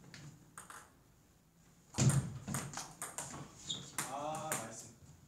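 Table tennis ball being struck and bouncing in a rally: sharp clicks of celluloid-type ball on rackets and table, starting suddenly about two seconds in after a quiet spell. A player's voice calls out briefly about four seconds in.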